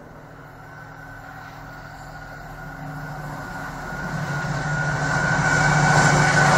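Freightliner Class 70 diesel locomotive approaching at the head of a container train: a low engine drone with a high whine above it, getting steadily louder as it nears.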